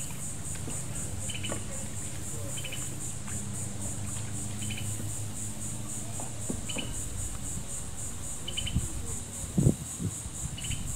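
Steady insect chorus, a high buzz pulsing several times a second, with a short chirp repeating about every second and a half. A few low thumps come near the end.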